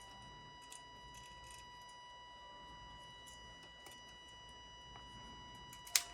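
A faint, steady test tone with a buzzy ladder of overtones runs throughout, the sign of the audio test signal in the signal-tracer setup. Over it come scattered small clicks of probe tips and clips touching the circuit board, and one sharp, louder click near the end.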